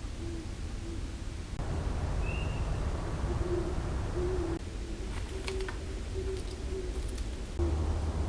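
Great horned owl hooting: a series of short, low hoots repeated throughout, over a steady low rumble and hiss.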